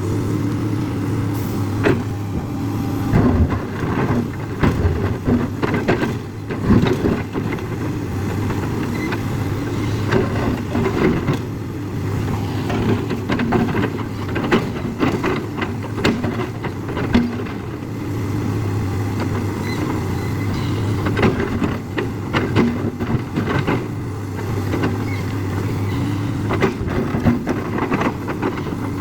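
JCB excavator's diesel engine running steadily under work, with irregular knocks and clanks throughout.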